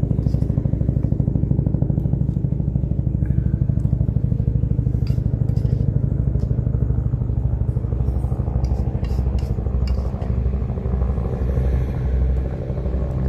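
Low aircraft droning overhead: a loud, steady, low throbbing engine sound that eases and wavers somewhat after about ten seconds. A metal spoon clinks and scrapes against a steel mixing bowl now and then.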